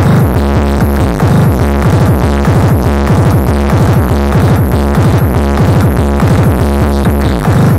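Electronic dance music played at very high volume through a tall stack of loudspeaker cabinets, with heavy bass and a steady thumping beat.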